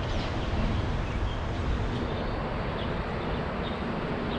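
Steady rumble of road traffic on the highway bridges overhead, with a few faint bird chirps.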